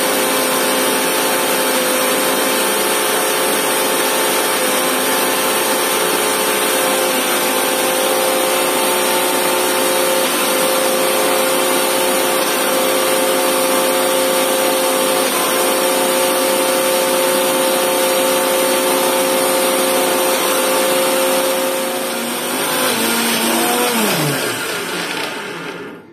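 Electric mixer grinder running at full speed, grinding henna leaves with tamarind and water in its steel jar: a loud, steady motor whine. Near the end it dips, picks up briefly, then is switched off and winds down with a falling whine before stopping.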